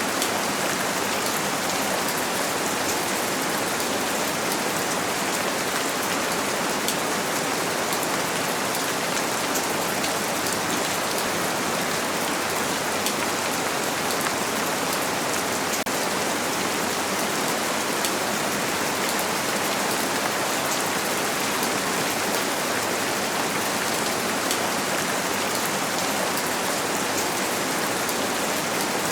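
Steady rain on a window, blended with white noise: an even hiss with faint scattered drop ticks.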